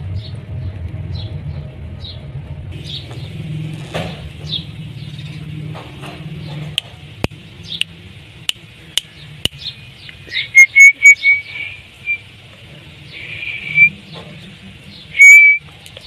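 Indian ringneck parakeet calling: faint chirps, then a run of sharp clicks, then a quick series of loud, high whistled calls about ten seconds in, with two more loud whistles near the end.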